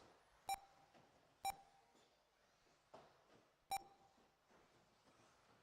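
Short electronic beeps from a race lap-timing system, four of them at uneven intervals, each a single high tone. Each beep marks a car's transponder crossing the timing line.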